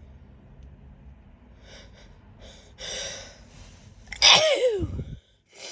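A woman sneezing once, loudly, about four seconds in, after a few short catching in-breaths; her voice drops in pitch through the sneeze.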